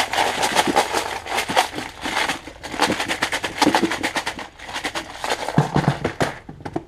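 Closed clear plastic terminal tackle box being shaken hard, the hooks and weights inside rattling and clattering in its compartments. The rattle stops about six seconds in, and a few knocks follow as the box is set down on the wooden bench.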